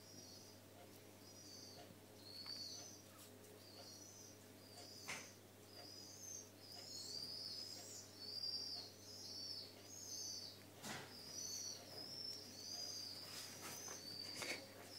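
Faint, high-pitched chirping calls repeating a couple of times a second, with a few sharp clicks now and then.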